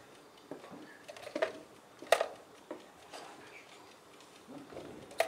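Wooden chess pieces set down on a wooden board in quick play, several sharp knocks, the loudest about two seconds in and another near the end.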